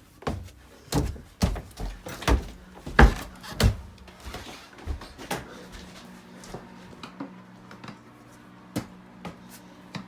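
Footsteps thudding indoors, about two a second for the first four seconds, then softer, scattered knocks.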